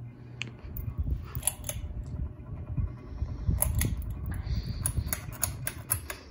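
Ceiling fan running on high speed, the air from its blades making an uneven low rumble on the microphone. Sharp clicks come from the pull-chain speed switch and its bead chain being pulled, a couple early and then a quick run of them in the second half.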